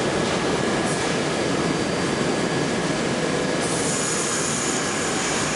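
R68A New York City subway train pulling out of an underground station, a steady loud rumble of wheels and cars on the track. A thin, high-pitched wheel squeal joins about three and a half seconds in.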